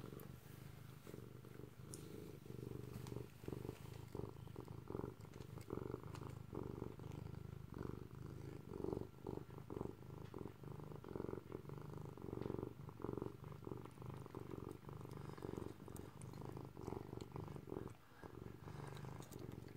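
Black-and-white domestic cat purring steadily while eating, with the irregular crunching of dry kibble being chewed.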